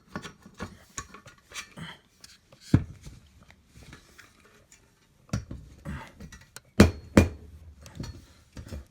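Irregular clinks, clicks and knocks of metal assembly parts and hardware being handled and set down. Single louder knocks come a few seconds in and again about five seconds in, then two sharp knocks close together about seven seconds in.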